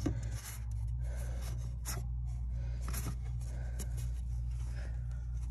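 Handling noise from fingers brushing and rubbing against the recording phone as it is repositioned: a few short scrapes at irregular moments over a steady low room hum.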